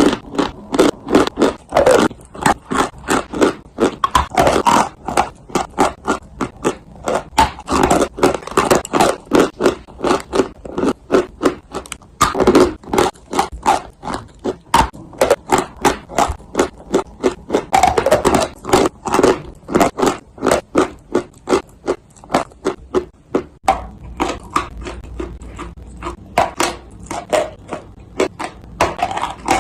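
Chunks of dry clay being bitten and chewed close to the microphone: a continuous run of sharp crunches, two or three a second.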